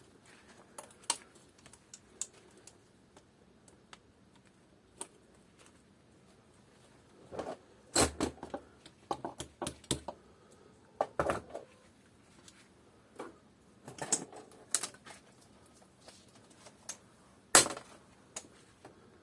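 Scattered metallic clicks and clinks of a socket and wrench being handled and fitted onto an inlet manifold bolt, coming in small clusters with one louder knock near the end.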